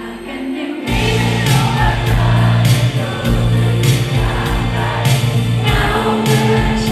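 Live pop band music: a soft, sustained opening, then about a second in bass, drums and singing come in together at full level.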